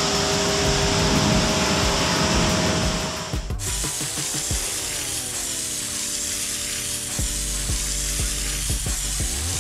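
A pressure washer sprays water onto a car in a loud, steady hiss that cuts off suddenly about three and a half seconds in. Background music with a beat follows.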